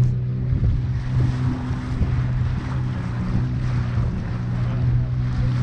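Engine of a small open tour boat running steadily under way, a constant low hum, with wind buffeting the microphone and water rushing past the hull.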